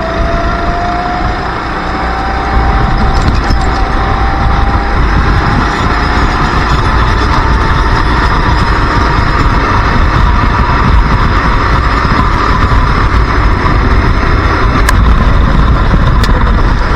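Racing kart engine heard from on board at full throttle, its note climbing steadily for several seconds and then holding high. Heavy wind rumble on the microphone.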